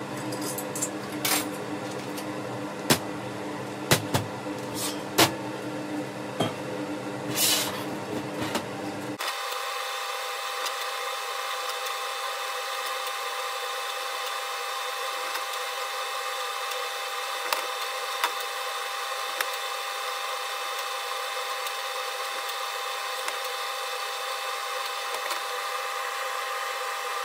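TIG welding arc on stainless steel, a steady buzz with a few sharp clicks, cutting off suddenly about nine seconds in. After it a steady high-pitched hum carries on, with the odd faint tick.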